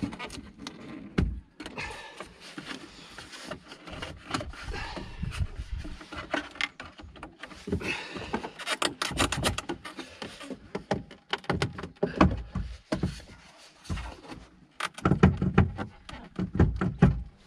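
Plastic interior trim panel at a Volvo XC90's boot opening being handled and pulled at by hand, giving irregular clicks and knocks, a quick run of clicks about halfway through and a cluster of heavier knocks near the end.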